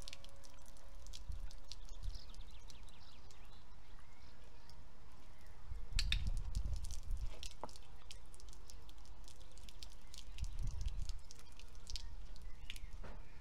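Low wind rumble on the microphone, swelling a few times, with scattered light clicks and taps.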